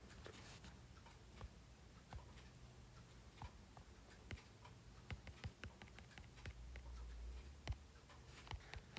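Near silence: room tone with a handful of faint, irregularly spaced clicks.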